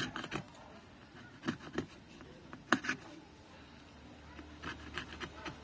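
Small irregular clicks, taps and scrapes of metal tweezers working along the edge of a phone's display frame, with one sharper tap about halfway through.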